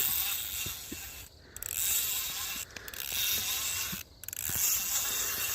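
Fishing reel whirring in four spurts with short breaks between them, as line is worked during the fight with a hooked fish.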